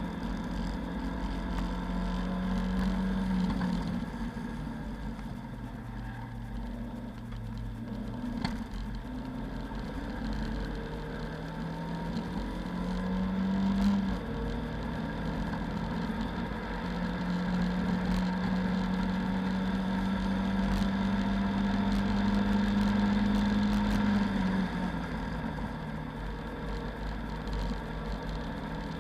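Lada 2109 race car's four-cylinder engine heard from inside the cabin under hard driving. Its note drops and climbs with gear changes and lifts off the throttle, rises to a peak about 14 seconds in, then holds one steady loud note for about seven seconds before falling away near the end.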